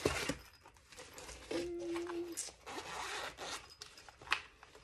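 A zipper pulled open along a zippered case in a run of rasping strokes, with handling clicks and rustling of the packaging.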